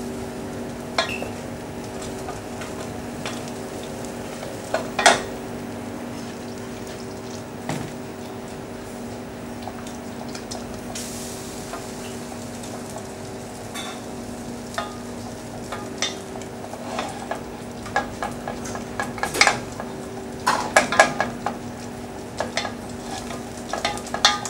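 Wooden spoon stirring and scraping a thick roux-and-stock paste in a stainless steel saucepan, with scattered knocks of the spoon against the pan that come thicker in the second half. The stock is being worked into the roux to bring it back to a smooth paste. A steady hum sits underneath.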